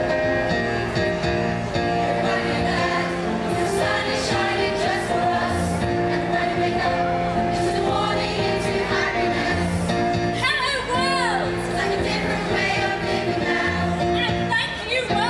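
A song performed live: voices singing a stage-show number over instrumental accompaniment.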